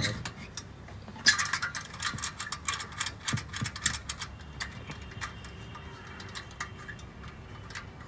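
Sharp metallic clicks and light scraping of an exhaust tip being worked onto a car's tailpipe by hand, a dense run of clicks starting about a second in and thinning out after about four seconds.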